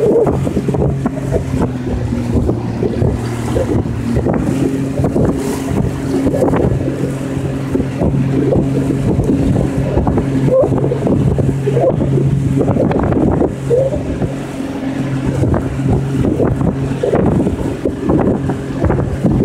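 Motor of a 15-foot aluminum fishing boat running steadily at low cruising speed, a constant hum, with wind noise on the microphone over it.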